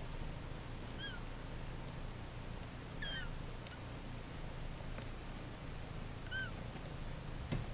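One-week-old Siberian kittens giving short, high-pitched mews three times, each call rising and falling. A brief soft knock comes near the end.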